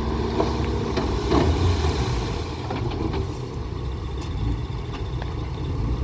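Diesel engine of heavy construction machinery running steadily with a low rumble, with a few faint knocks and clanks.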